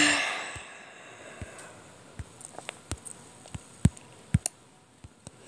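Scattered light taps, about a dozen at irregular spacing, with the two loudest near the middle: fingertips tapping on a tablet's touchscreen while drawing.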